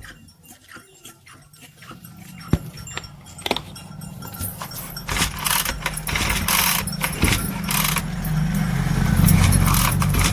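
Small petrol engine of a brush cutter running, growing louder from about four seconds in, with many sharp clicks over the steady hum.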